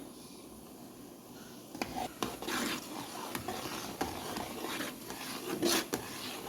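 A spoon stirring and scraping through a pot of thickening canjica (sweet corn pudding). It starts about two seconds in with irregular scrapes and knocks against the pot.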